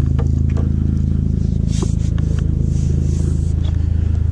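Steady low engine hum with a fast, even pulse, with a few light clicks on top.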